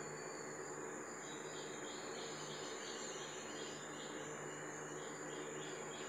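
Insects chirping in a steady rhythm of about three pulses a second, over a constant high-pitched whine and a low steady hum.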